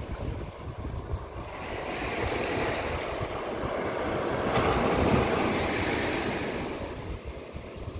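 Sea surf washing on the beach, swelling to a peak about five seconds in and then falling back, with wind buffeting the microphone.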